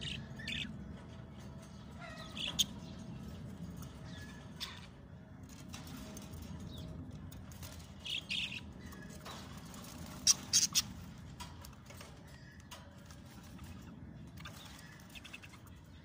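Budgerigars chirping in short, scattered calls, the loudest a quick run of three sharp chirps about ten seconds in, over a steady low background rumble.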